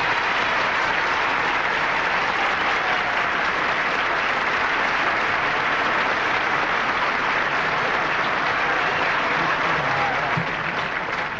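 Studio audience applauding steadily, beginning to die down near the end.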